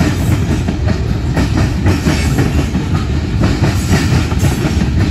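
Freight train covered hopper cars rolling past close by: a steady low rumble of steel wheels on the rails, with scattered clicks from the wheels going over the track.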